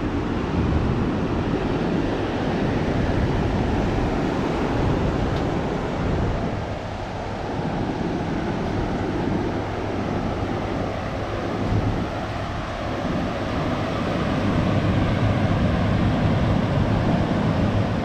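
Ocean surf breaking and washing in a steady roar of noise, with wind rumbling on the microphone.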